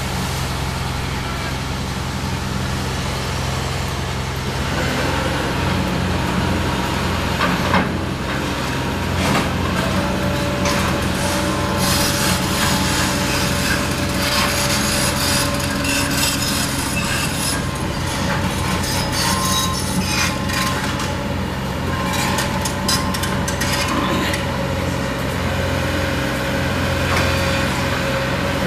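Demolition by a John Deere 450C LC hydraulic excavator: its diesel engine running steadily under the crunch, scrape and clatter of broken debris and metal being torn down. The crashing and clattering picks up a few seconds in and goes on irregularly, with street traffic passing.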